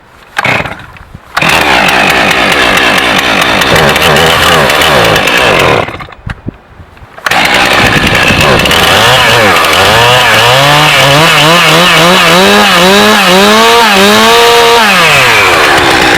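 Stihl chainsaw starting and running at high revs. It cuts out briefly about six seconds in, comes back, then revs up and down over and over before settling.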